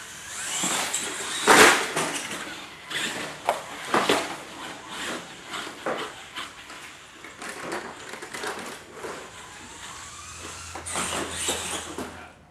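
A string of sharp knocks and clatter as a radio-controlled monster truck and the obstacles on its course are knocked about and handled, the loudest a sharp bang about a second and a half in. Brief rising whines, typical of the truck's motor, come later.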